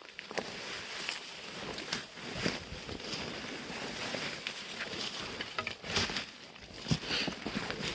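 Footsteps and brushing through dense forest undergrowth: leaves and twigs rustling, with a few sharper snaps and crunches scattered through.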